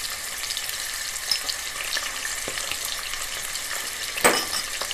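Onions and garlic frying in oil in an open stainless pressure cooker pot, a steady crackling sizzle. A single sharp clack comes about four seconds in.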